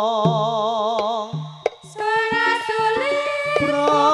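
Campursari music: a singer holds a long note with a wide vibrato over a low bass line. The music drops away briefly about a second and a half in, then a new melodic phrase starts.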